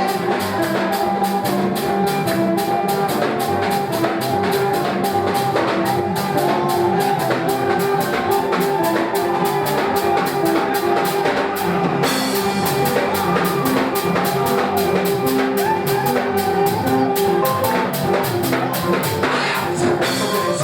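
Live church band playing an instrumental passage: a drum kit keeps a fast, steady beat under sustained keyboard and bass notes.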